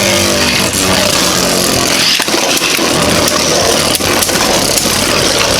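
Two Beyblade Burst spinning tops fitted with 3D-printed metal parts spinning and clashing in a plastic stadium: a steady whirring hiss with rapid clicks as they strike each other and the stadium wall, and a pitched whine that falls over the first second or so.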